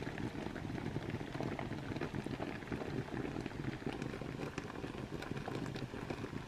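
Hot water trickling into a filter coffee to steep, a steady fine crackling and bubbling.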